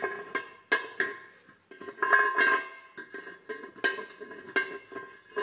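A string of metallic clinks and taps, each leaving a short ringing tone at the same pitch.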